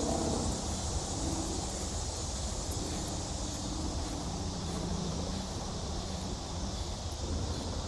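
Outdoor background noise: a steady low rumble and hiss, like wind and distant traffic, with faint pitched sounds now and then.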